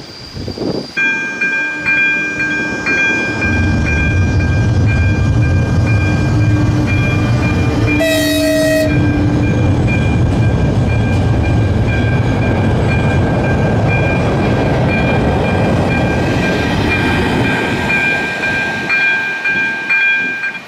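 Level-crossing warning signal ringing steadily as a high, regularly pulsing electronic tone while a train rumbles past over the rails. The train's horn sounds once, briefly, about eight seconds in.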